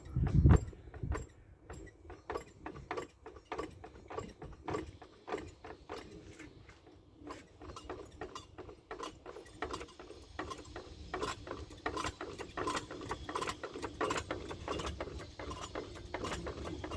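Repeated short creaks from the gearbox area of a first-generation Skoda Octavia, coming in a fast, uneven series of a few a second, with a low thump about half a second in.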